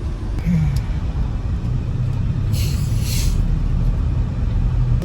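Van cabin noise on the road: a steady low engine and road rumble with an engine hum, and a brief hiss about two and a half seconds in.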